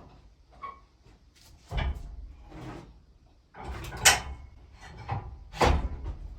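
Irregular knocks and clunks of a log being handled and set on a portable sawmill's bed, with the mill not yet running. The loudest knock comes about four seconds in, and another heavy thud follows near the end.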